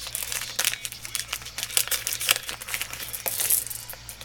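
Candy wrapper crinkling as it is handled and opened: a dense, irregular run of crackles.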